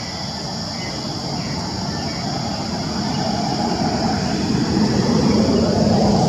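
A motor vehicle passing close by, its engine and tyre noise swelling steadily louder and peaking near the end.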